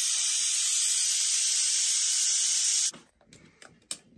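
Loud, steady hiss from the cooking vessel, like steam or hot fat, cutting off suddenly about three seconds in, followed by a few faint clicks.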